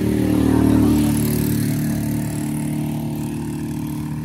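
Small engine running steadily, swelling louder about a second in and then easing back.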